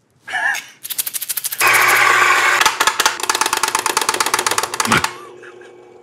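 Fellow Ode Brew Grinder with SSP Multi Purpose burrs grinding coffee beans: rapid clicking starts about a second in and turns into a loud, dense crackle over the motor's hum, stopping about five seconds in.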